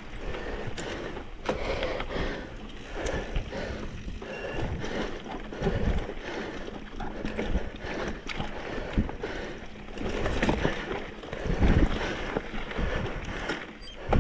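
Mountain bike clattering over a rocky, rooty trail: a continuous rough rolling noise broken by irregular knocks and rattles.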